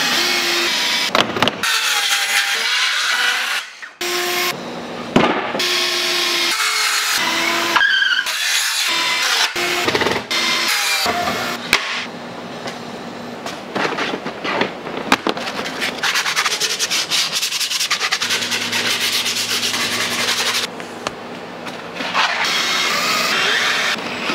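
Wood being worked on a plywood stool seat in a string of short, abruptly changing pieces: wood rubbing and scraping, and a cordless drill driving screws into the plywood.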